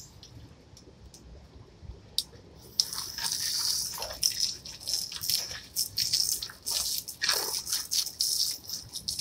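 Garden hose spray hitting white plastic patio chairs and splashing onto wet pavement. It starts about three seconds in, after a quieter stretch, and then keeps up an irregular hiss and splatter.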